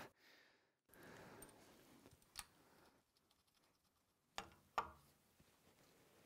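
Near silence broken by faint rustling about a second in and a few sharp clicks: one near the middle, then two close together later on. These are the sounds of hands working rubber fuel hose and its fittings on a frame-mounted fuel pump.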